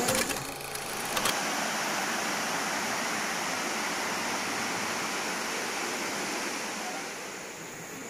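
Steady rushing of a small forest stream flowing over rocks, with a few brief clicks in the first second; it drops quieter near the end.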